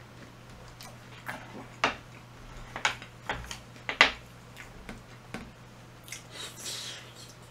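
A person eating close to the microphone: chewing and wet mouth sounds with a series of sharp, irregular clicks, the loudest about four seconds in, and a brief hissing sound near the end.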